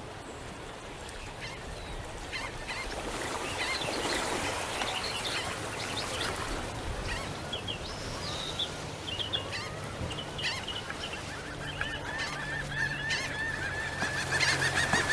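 Birds calling with many short honking calls, over a steady low hum, with a longer wavering call near the end.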